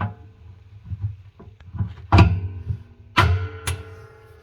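Rosenlew RTT1055 top-load washing machine's drum flaps or lid being pushed shut: a few sharp knocks, the loudest about two and three seconds in, each leaving a ringing tone.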